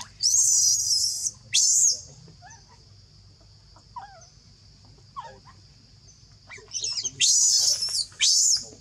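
Baby macaque screaming and crying in distress, denied nursing by its mother: a long high-pitched scream and a short one at the start, soft whimpers, then a run of screams near the end.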